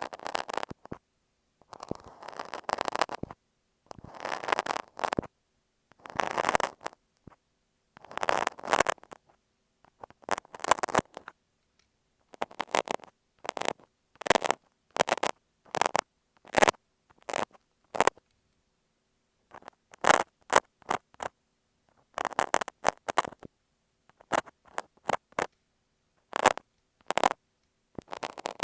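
Box cutter scratching and scraping over masking tape stuck on an earphone microphone, heard very close. It comes in short crackling strokes every second or two, with a longer pause about two-thirds of the way through.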